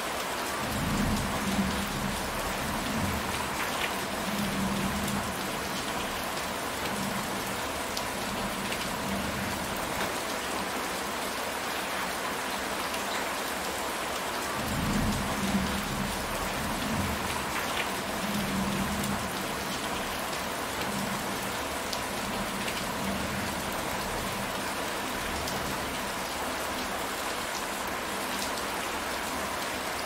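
Heavy rain falling steadily on a roof and trees. Low rolls of thunder rumble about a second in and again about halfway through.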